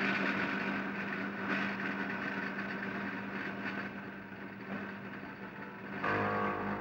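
A steady machine hum, even and unchanging. Music comes in about six seconds in.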